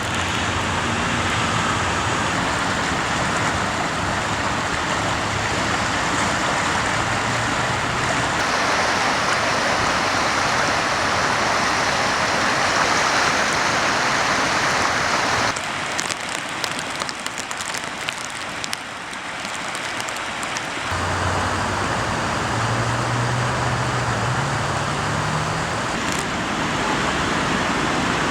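Rushing floodwater: a loud, steady rush of noise that drops in level for a few seconds near the middle. A low hum rises in steps in the later part.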